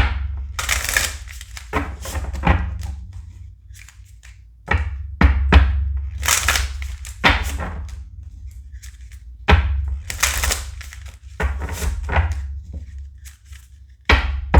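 A deck of tarot cards being shuffled and handled by hand: repeated quick rustling swishes, each with a low thud.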